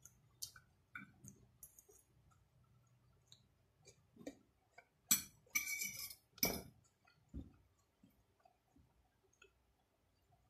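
A metal fork clinking and scraping against a plate as pasta is gathered, in scattered sharp clinks with a louder run of them a little past the middle.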